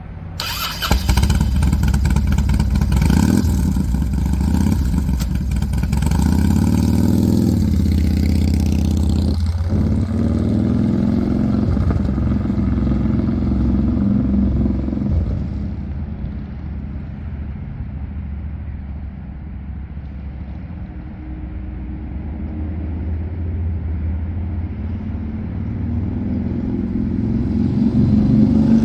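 2004 Harley-Davidson Dyna Wide Glide's Twin Cam 88 V-twin engine revving up sharply about a second in, then running as the motorcycle rides off, rising in pitch as it accelerates. The engine grows fainter as the bike gets far away, then louder again near the end as it rides back.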